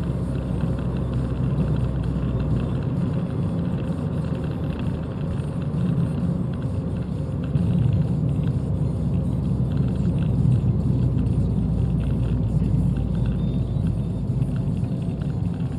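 Abarth 595's turbocharged 1.4-litre four-cylinder engine and tyre noise heard inside the cabin while cruising, a steady low rumble that gets a little louder about halfway through.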